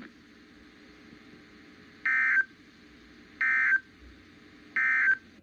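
Three short, loud, buzzy data bursts from a NOAA Weather Radio broadcast, about a second and a half apart, over faint radio hiss. They are the SAME end-of-message codes that close the Required Weekly Test.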